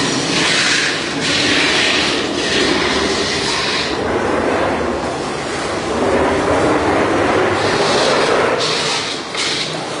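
A metal-spinning lathe turns a large sheet-metal disc being formed into a satellite dish, with a steady mechanical rumble. Over it come hissing, scraping stretches of a second or so as the forming lever is pressed against the spinning sheet, several in the first four seconds and again near the end.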